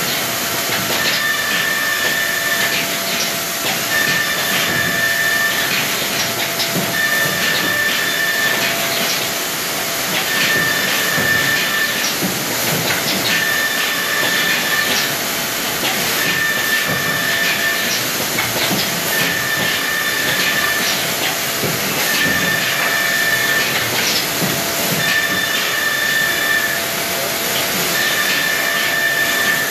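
Woodworking panel machinery running in a factory: a steady loud hiss with a constant hum. A higher tone sounds for about a second and a half roughly every three seconds, with faint clicks.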